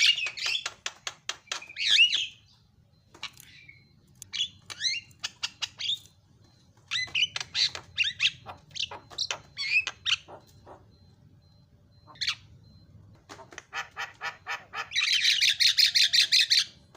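Javan myna singing: fast runs of clicks and rattles mixed with short whistled and squeaky notes, breaking into a loud, harsh chatter near the end.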